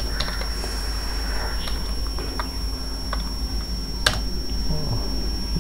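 Computer keyboard typing: a handful of scattered key clicks, one louder about four seconds in. Under it runs a steady electrical hum with a thin high whine.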